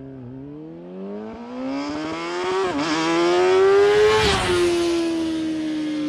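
Kawasaki ZX-6R 636 inline-four engine through its exhaust, pulling with the revs rising steadily for about four seconds, then easing off with the note falling slowly.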